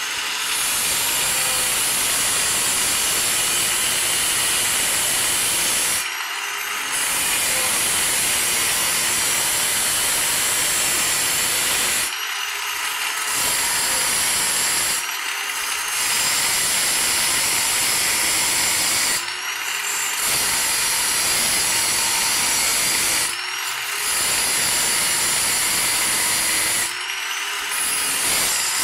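Electric grinder cutting a small metal piece: a steady grinding noise, broken every few seconds by a short dip in which the motor's pitch rises as the disc comes off the work.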